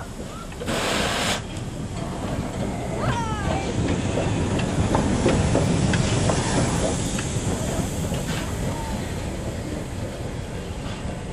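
Henschel-built D h2t steam tank locomotive (ELNA Type 6) rolling slowly past, with a short hiss of steam about a second in. Its wheels rumble and click on the rails, loudest near the middle, with a few brief squeaks a few seconds in.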